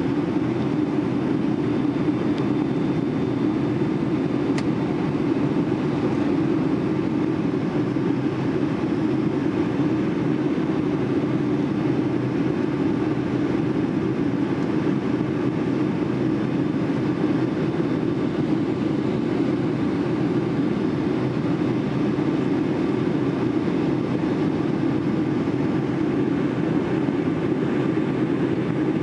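Steady cabin noise of a Boeing 757 in its climb after takeoff, heard inside the cabin by the wing: the Rolls-Royce jet engines and the rushing air blend into an even low rumble that does not change.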